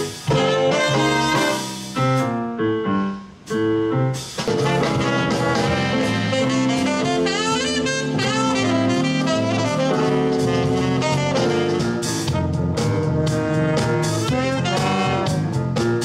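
Live band with a saxophone and brass section playing a jazzy number over drums, bass guitar and keyboard. Short punchy horn phrases with brief breaks in the first few seconds, then steady playing.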